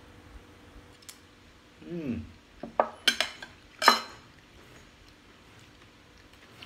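A metal spoon and a ceramic bowl clinking against the plates on a table as the bowl is set down. There are a few sharp clinks about three to four seconds in, and the last is the loudest.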